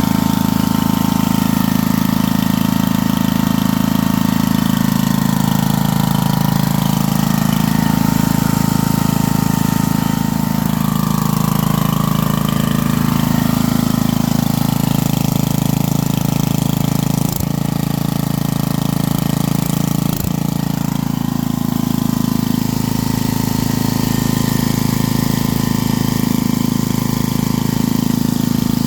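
Coleman Powermate 4000 W portable generator's engine running at a steady speed, with two brief clicks a little past halfway, about three seconds apart.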